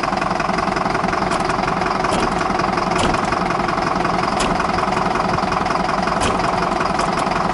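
Diesel truck engine idling steadily, with a few light clicks over it.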